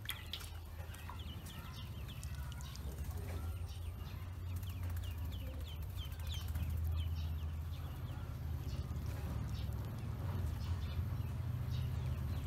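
A group of domestic ducklings peeping continuously, many short high falling peeps several times a second, over a steady low rumble.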